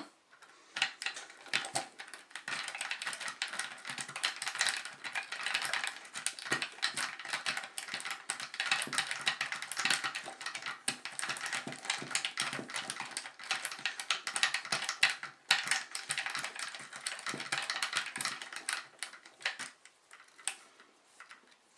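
A paperclip rake scraping in and out of a five-pin pin-tumbler lock under light tension from a paperclip tension wrench. It makes rapid metallic scratching and clicking as the pins spring against it, and stops shortly before the end.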